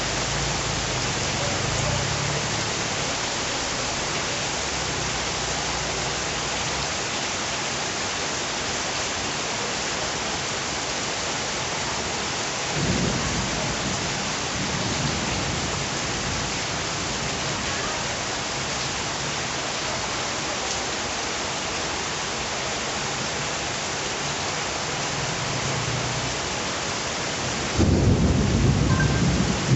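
Steady heavy rain falling. Low rolls of thunder come in about halfway through, and a louder roll of thunder near the end.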